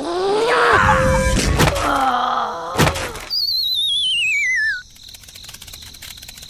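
Cartoon sound effects: sliding, pitched squeaks with two sharp hits, then a wobbling whistle that falls in pitch for about a second and a half and cuts off, the usual sound for a character knocked dizzy.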